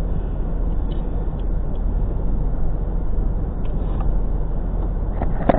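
Steady rush of a Ford F-150's defroster blower, heard inside the cab, with a constant low hum beneath it. A few light clicks come through, and a short, louder clatter comes near the end.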